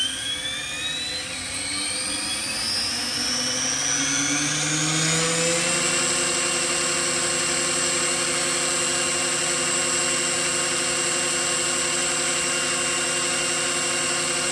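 Bladeless SAB Goblin electric RC helicopter spooling up on its Hobbywing ESC: a whine from the motor and drivetrain rising in pitch for about six seconds, then holding steady once the head reaches its governed speed in idle-up.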